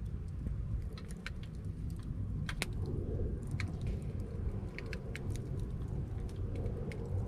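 Wood campfire of gathered branches and driftwood crackling, with scattered sharp pops and snaps over a steady low rumble.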